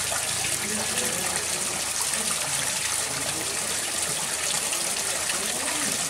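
Flowing river water: a steady, unbroken rushing hiss.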